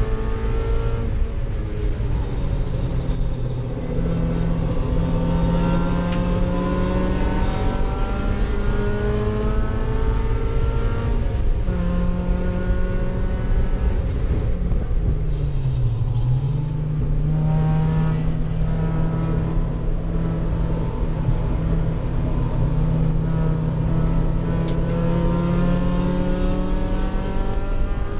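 Mazda Miata race car's four-cylinder engine heard from inside the caged cabin, pulling under load with its pitch climbing steadily and breaking off briefly at each gear change. About halfway through, the revs dip and then climb again.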